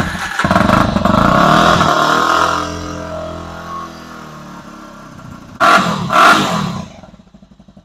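Yamaha TT-R250's air-cooled single-cylinder engine catching on the electric starter on a cold start with choke, running fast and then dropping in pitch as it settles toward idle. Two short loud bursts come near the end, then it idles with an even beat.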